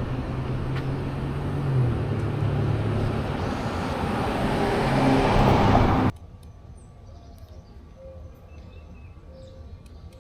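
Street noise with a vehicle engine running, loud and steady, cut off sharply about six seconds in. After the cut there is a much quieter outdoor background with a few faint chirps.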